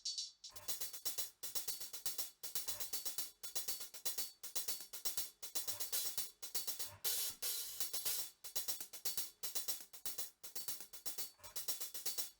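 Recorded live drum overheads played back on their own: hi-hat and cymbals ticking in a quick, steady pattern, with little low end from the kick or snare.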